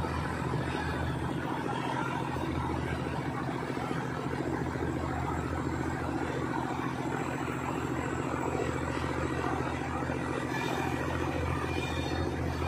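Diesel engine of a yellow SRT track-maintenance vehicle running steadily as it shunts slowly along the track, a low, even drone.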